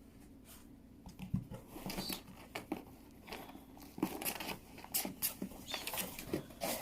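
Packaging being torn open and handled to open a pigeon shipping box: irregular crinkling, tearing and rustling with scattered small clicks and scrapes.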